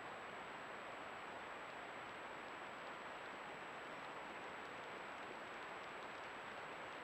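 Steady hiss from a trail camera's own microphone, with a faint constant high-pitched electronic whine; no calls or footsteps stand out.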